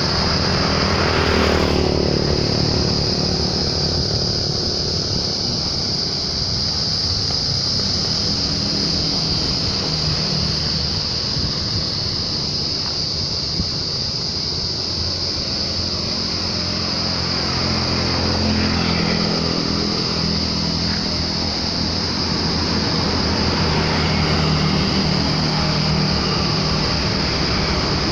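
Diesel truck engine idling steadily nearby, a low even rumble, with a constant high-pitched drone above it.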